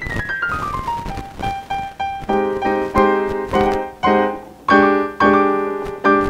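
Electric keyboard played solo: a quick falling run of single notes, a few repeated notes, then a series of full chords struck one after another with short breaks between them.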